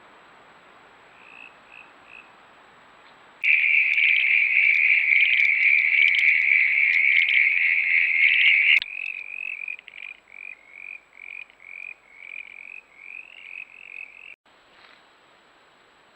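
Frogs calling. A few short high chirps come first, then a loud, unbroken high trill lasting about five seconds that cuts off abruptly, then a run of short chirping notes at about two or three a second.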